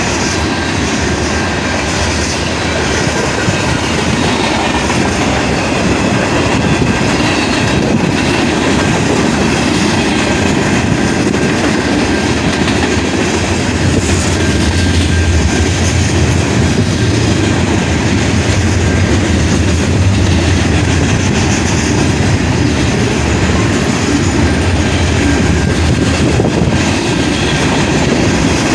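Train rolling past on the track: a loud, continuous rumble of rail cars, with a heavier low rumble in the middle stretch.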